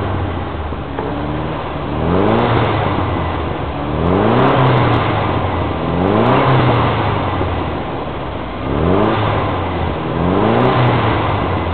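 A car engine revved again and again, about five times roughly every two seconds, each rev climbing in pitch and then falling back.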